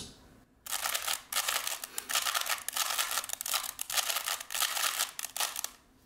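A 3x3 Rubik's Cube being turned fast with finger tricks: a quick, continuous run of plastic clicks and rattles as the layers snap round. It starts about half a second in and stops just before the end.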